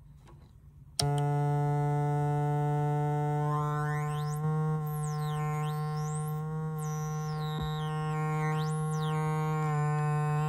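Synthrotek Chaos NAND noise synth pedal, run through a Chase Bliss Habit delay, cuts in abruptly about a second in with a steady, buzzy electronic drone. High-pitched tones sweep up and down over it as an oscillator knob is turned.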